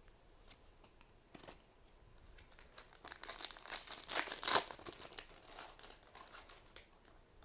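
A foil trading-card booster pack being torn open, its wrapper crinkling and crackling, loudest around the middle, after a few light clicks.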